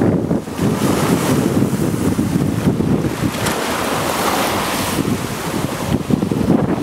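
Choppy lake waves breaking and washing onto a shore heaped with zebra mussel shells, with strong wind buffeting the microphone as a heavy, uneven rumble.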